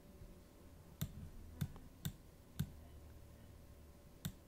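Five sharp, faint clicks from a computer mouse and keyboard, at uneven intervals, the last near the end, as vertices are selected, grabbed and dropped in the Blender editor.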